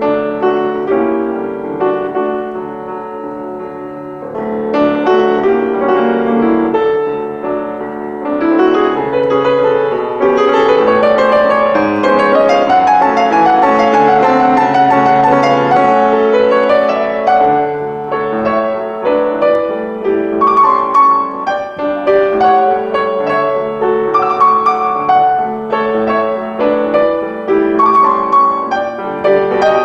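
Piano playing a flowing instrumental piece, softer for the first few seconds and fuller from about four seconds in, with rising runs of notes in the middle.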